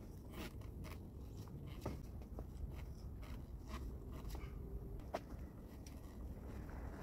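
Faint scattered clicks and knocks from a person swinging and pulling up on an outdoor pull-up bar, the sharpest about five seconds in, over a steady low rumble.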